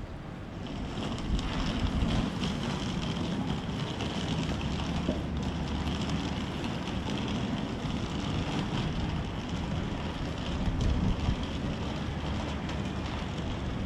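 Steady city street ambience: a low hum of distant traffic with wind rumbling on the microphone.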